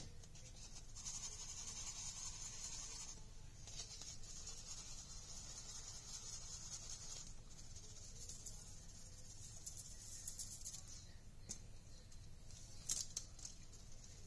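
Faint hissing rustle of loose glitter being sprinkled by hand onto a craft letter, in several stretches of a few seconds each, with a couple of light clicks near the end.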